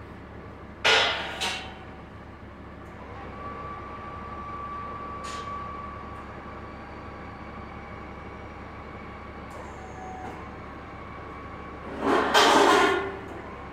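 Steel hoist chain and a steel welding-table frame clanking as the frame hangs from a crane hook and is turned over: a sharp clank about a second in, then a loud clatter of metal lasting about a second near the end.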